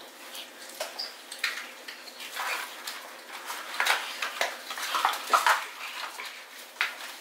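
Cardboard McDonald's nugget boxes and dipping-sauce cups being handled and opened while people eat: irregular clicks, taps and rustles.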